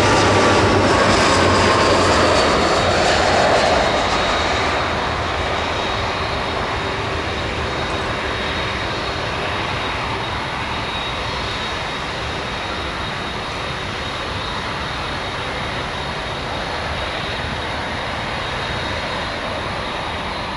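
Jet airliner passing at the airport: its engine whine glides down in pitch and is loudest over the first few seconds, then gives way to a steady jet rumble as it moves away.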